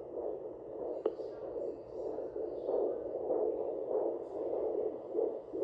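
Home fetal doppler's speaker giving a whooshing signal that swells and fades in quick pulses, the sound it makes when picking up blood flow while checking the fetal heart rate. A single click about a second in.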